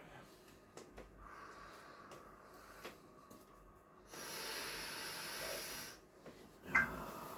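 A person breathing heavily: a long hissing exhale about four seconds in, lasting some two seconds, then a short, loud vocal sound near the end.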